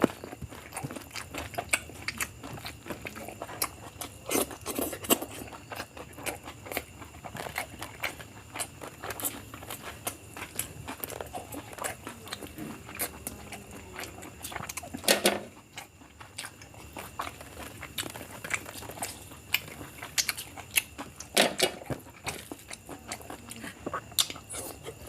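Close-up chewing and mouth sounds of a person eating biryani: irregular wet smacks and clicks throughout, with two louder bursts of noise about fifteen and twenty-one seconds in.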